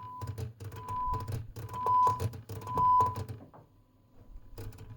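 A 1 kHz test tone from the Storno TS-G13 audio tester's amplifier, heard as four short beeps about a second apart, each louder than the last, among rapid clicking from its stepped level switches. Near the end the tone comes back faintly and holds steady.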